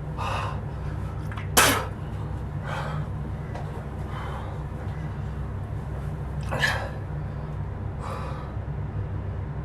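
A man breathing hard against the burn of hot peppers: short, sharp, hissing exhales and sniffs every second or two. The sharpest and loudest comes about a second and a half in. A steady low hum runs underneath.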